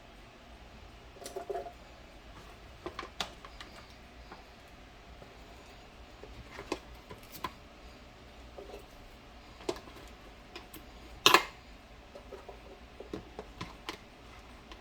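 Scattered light clicks and knocks of objects being handled, with one louder knock about eleven seconds in.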